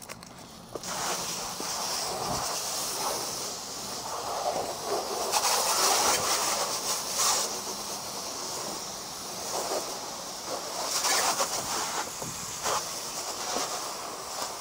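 Water spraying from a garden hose spray nozzle onto a car's roof, rinsing off the soap: a steady hiss and spatter that starts about a second in and swells and fades as the spray moves across the panels.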